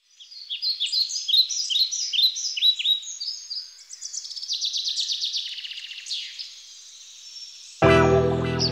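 Songbirds singing: many quick, high chirps sweeping downward, then fast rattling trills. About three-quarters of the way in, music with piano-like notes starts abruptly and becomes the loudest sound.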